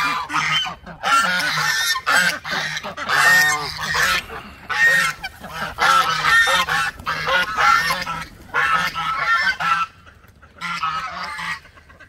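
A flock of geese honking repeatedly, many calls overlapping, dying down near the end with a last short burst. The birds are calling as they are let out of their pen.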